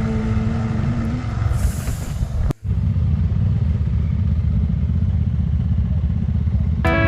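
Off-road motorcycle riding, a steady low rumble, heard after an abrupt cut about two and a half seconds in. Music fades under it at the start and returns near the end.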